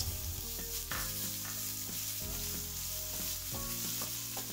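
Chopped red onions sizzling in hot oil in a non-stick frying pan, stirred with a wooden spatula.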